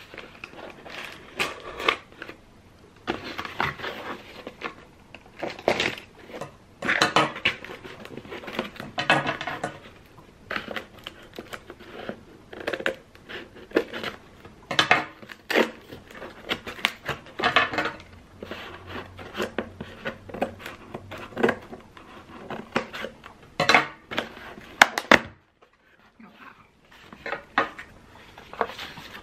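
Scissors cutting through clear packing tape on a cardboard box: irregular clicks and snips of the metal blades, tape crackling and cardboard scraping. Near the end the box flaps are pulled open and paper rustles.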